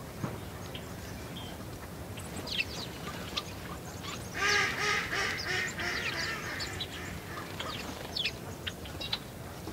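House sparrows chirping in short, scattered high notes around a bird feeder. Near the middle, a louder, harsh nasal call of several quick notes from another bird lasts about a second and a half.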